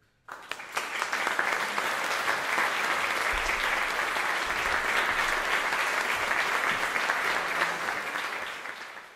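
Audience applauding, starting abruptly just after the start and dying away near the end.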